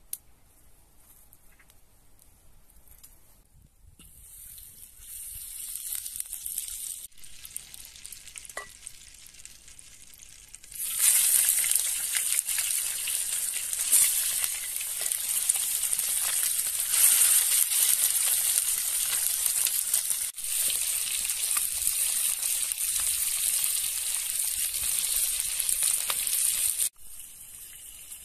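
Chicken pieces frying in hot oil in a wok, a steady sizzle. It is faint at first, turns loud about eleven seconds in, and cuts off suddenly near the end.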